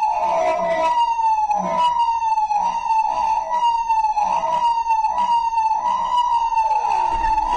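Siren sound effect played over the house speakers: a loud tone near 1 kHz that slides down a little and restarts about once a second.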